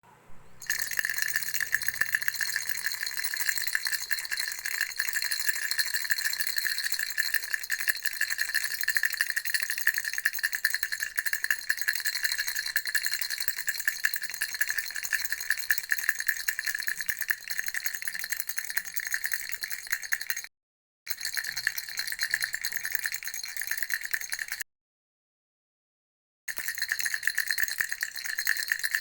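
Baby rattle shaken rapidly and continuously, a dense run of fast clicks with a steady high ring. It stops dead twice near the end, once briefly and once for about two seconds, then resumes.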